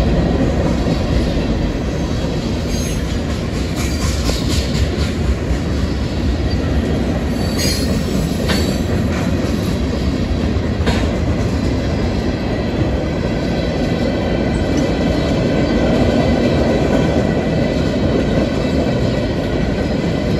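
Freight train cars (hoppers, gondolas, flatcars) rolling past close by: a steady rumble of steel wheels on rail, with several brief high-pitched wheel squeals in the first half.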